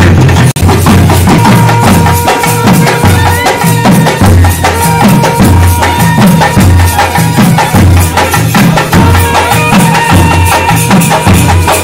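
Tamil temple-festival drum band playing a fast, driving rhythm on barrel drums and stick-played round drums, with a held high note sounding above the drums at times. The sound cuts out for an instant about half a second in.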